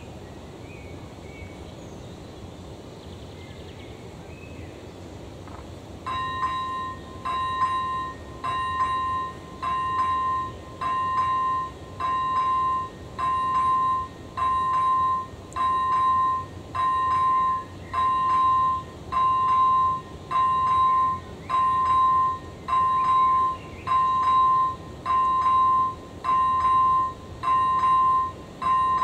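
Level-crossing warning bell, an AŽD ZV01 electronic bell, starting about six seconds in and sounding a repeating electronic ding about once a second: the crossing has activated to warn of an approaching train. Before it starts there is only steady outdoor background.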